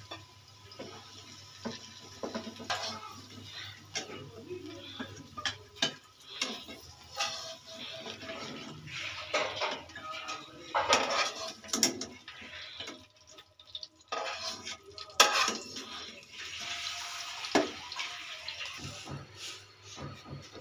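Wooden spatula scraping and clacking against a non-stick wok as fried okra is scooped out into a bowl: irregular knocks and clinks, with one sharp knock about three-quarters of the way through.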